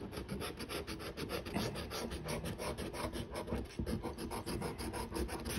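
Scratch-off lottery ticket being scratched to uncover the play numbers: rapid, even rasping strokes, about six a second.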